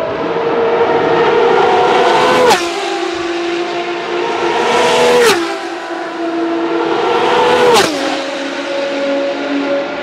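Three Ferrari XX-programme V12 track cars passing one after another at speed, each a high, steady engine note that drops sharply in pitch as it goes by, the passes about two and a half seconds apart.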